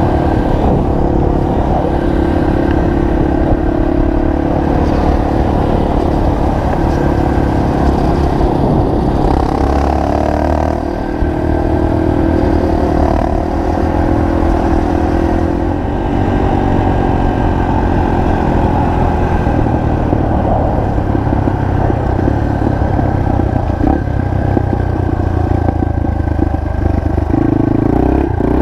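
Single-cylinder four-stroke trail motorcycle engine running under way, its revs rising and falling as the bike is ridden.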